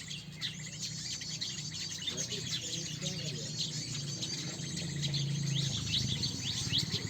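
Many small birds chirping in quick, overlapping short calls, over a steady low hum.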